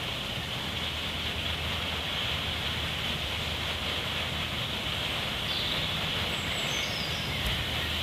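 Smoke grenade burning with a steady hiss as it pours out smoke, over a low steady rumble.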